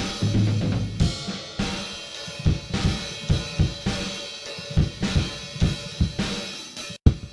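Acoustic drum kit played live: kick drum, snare and cymbals in a steady groove. The sound cuts out for an instant near the end.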